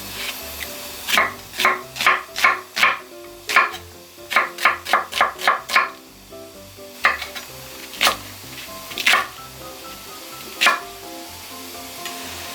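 Knife chopping on a cutting board: a quick run of about a dozen sharp strokes over the first six seconds, then four slower single chops. Background music plays underneath.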